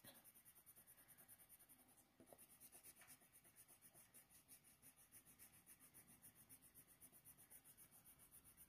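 Near silence, with faint scratching of a white Faber-Castell Polychromos colour pencil burnishing hot-press watercolour paper under heavy pressure.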